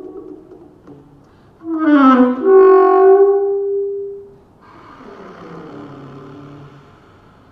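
Alto saxophone playing a contemporary solo: a quick falling run into a loud held note that fades away, then a softer, breathy passage with a low note sliding downward.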